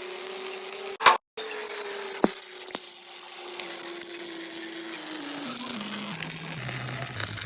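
A small electric motor running at speed with a hiss, then winding down, its pitch falling steadily over the last couple of seconds. Two sharp knocks come about a second in and just over two seconds in.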